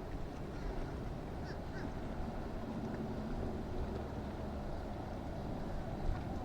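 Boat engine running steadily over a low rumble of wind and water.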